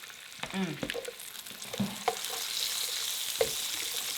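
Burgers sizzling on an indoor electric grill, the hiss growing louder about two seconds in, with a few sharp clicks of utensils on the grill.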